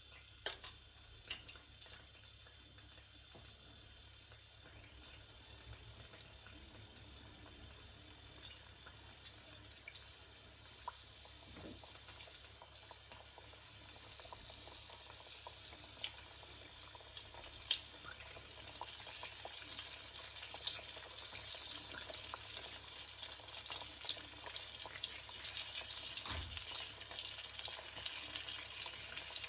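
Flour-dredged salmon and shrimp frying in hot oil: a steady sizzle with scattered pops, slowly growing louder.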